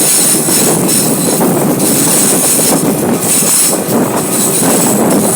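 Train running on its track: a steady, loud rumble of wheels on rails with a thin high whine above it.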